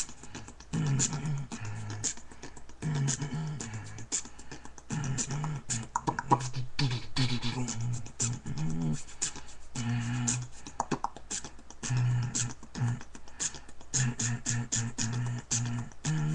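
Vocal beatboxing: quick rhythmic mouth clicks and hissed hi-hat sounds over a hummed bass line in short held notes that shift in pitch.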